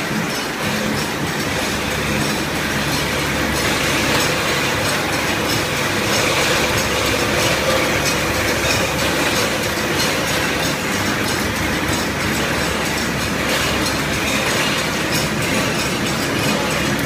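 Automatic tin-can conveyor and seaming machine running: a steady, fast mechanical clatter with metal cans rattling along the track, over a constant motor hum.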